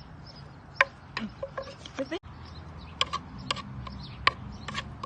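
Irregular sharp knocks and clinks of utensils against a bowl or mortar, about a dozen, each ringing briefly, typical of mixing and pounding papaya salad.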